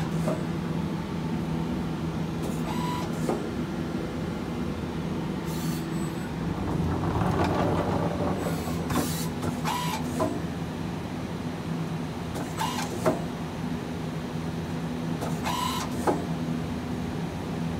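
Takamaz XL100 CNC lathe running: a steady mechanical hum, with several short noisy bursts and two sharp clicks as the turret and slides move.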